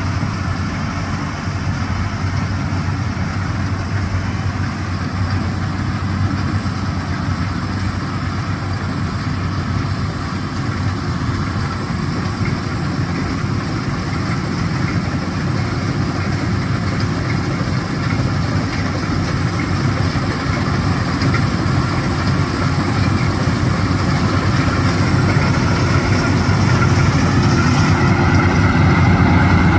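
A rice combine harvester running steadily, its engine and threshing machinery making a continuous low drone that grows slightly louder near the end.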